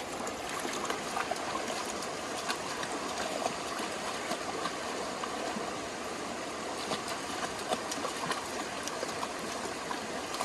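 Creek water running steadily over its bed.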